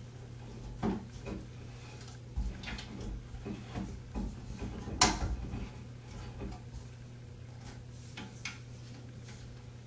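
Delta In2ition shower head being screwed by hand onto a taped shower arm: scattered small clicks and scrapes of the fitting and hands, with one sharper click about five seconds in, over a steady low hum.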